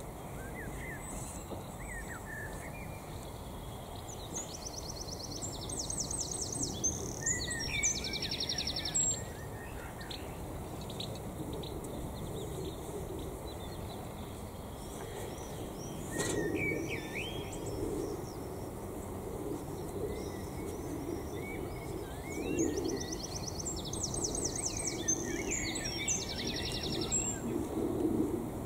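A songbird singing a fast, trilling song twice, about five seconds in and again about twenty-two seconds in, with other small bird chirps between. From about halfway, the repeated scraping strokes of a garden rake being drawn through soil.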